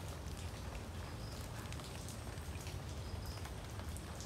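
Light rain pattering on leaves and wet ground, with scattered drop ticks, over a low steady rumble.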